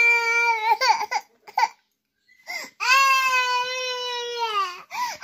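Toddler crying: a wail in the first second, broken off into a few short sobs, then a long wail of about two seconds that falls in pitch at its end.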